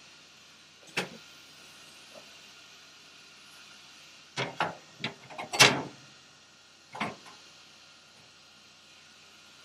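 A steel bar clanking against a sheet-metal vehicle floor as it is handled and set down: one sharp knock about a second in, a quick run of clanks in the middle, and one more knock about a second later.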